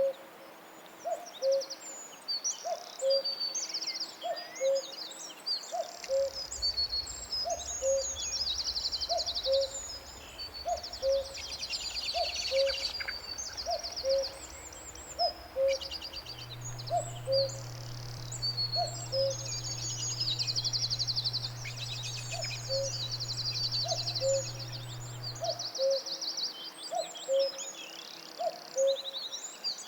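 A forest bird chorus: a low two-note hooting call repeats steadily about once a second under many high, fast trills and chirps from several birds. A low steady hum runs beneath from about six seconds in until near the end.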